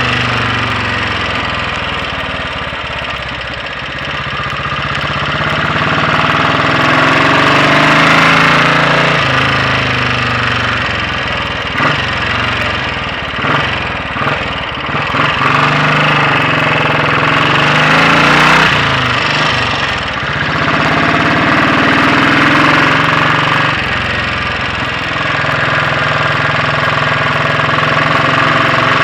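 Royal Enfield Bullet 500 single-cylinder four-stroke engine running on the road, its note rising and falling several times as the bike accelerates, changes gear and eases off. The inlet cam is retarded by one tooth.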